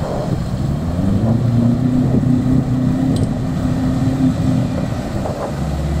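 Mitsubishi L200 pickup's engine pulling steadily under load as the truck wades through a deep river. The pitch rises over the first second, holds, then eases off about four seconds in, with water churning around the truck.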